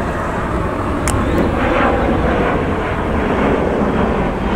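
Jet airliner engines running: a loud, steady noise, with a short sharp click about a second in.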